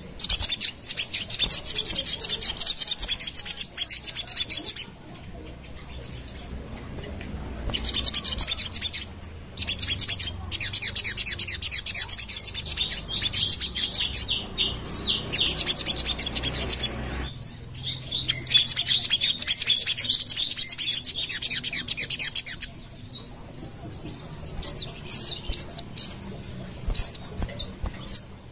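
Sogon (sogok ontong, little spiderhunter) bird singing in long bursts of rapid, high-pitched chattering trills, broken by short pauses, then giving scattered single calls near the end.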